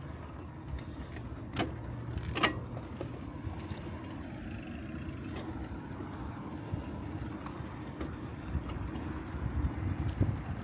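Bicycle being ridden: a steady low rumble of tyres on the path with wind on the microphone, and two sharp clicks about one and a half and two and a half seconds in.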